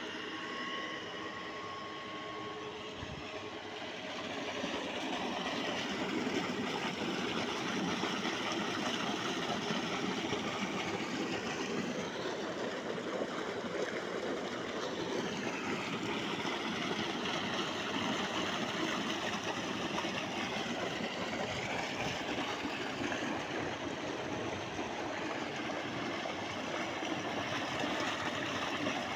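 Tubewell running: a belt-driven electric motor and pump with water gushing from the discharge pipe into a concrete tank, a steady rushing sound that gets a little louder about four seconds in.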